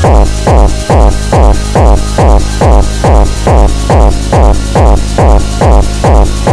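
Electronic dance music in a trance/techno style: a steady kick drum about twice a second, with synth chords pulsing in time with each beat.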